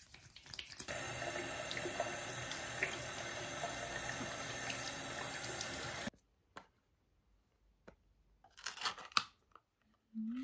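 Water tap running steadily into a sink for about five seconds, then cut off suddenly; a brief rustle follows.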